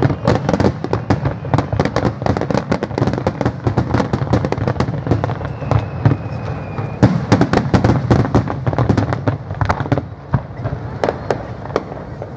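Aerial fireworks bursting in a rapid barrage: many sharp bangs and crackles a second, thinning out near the end.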